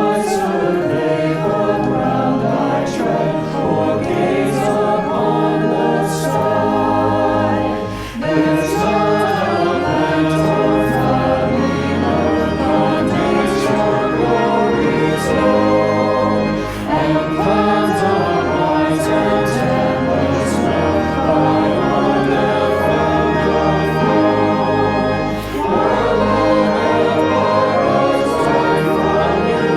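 Church choir singing, phrase after phrase over sustained low notes, with short breaks about eight seconds in and again near twenty-five seconds.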